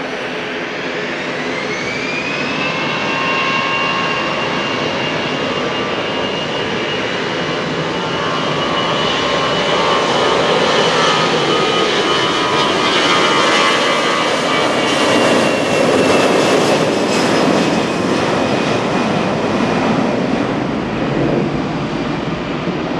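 Jet airliner's engines spooling up. A whine rises in pitch over the first two seconds, then holds steady while the engine noise grows louder. It peaks about three-quarters of the way through as the plane passes, then starts to fade.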